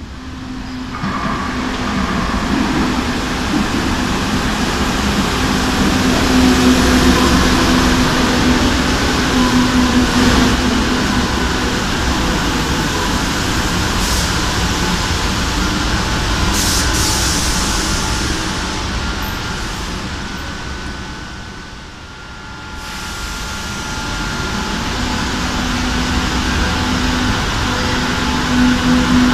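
Madrid Metro Serie 2000 electric train running through an underground station: the rumble of wheels on rail builds as it comes out of the tunnel, over a steady motor hum. The sound sinks about two-thirds of the way through, then builds again as a train moves along the platform.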